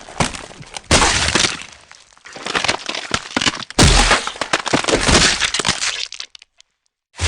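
Glass shattering sound effects: two loud crashes, about one second in and near four seconds in, each followed by a long spill of tinkling, falling shards that fades out.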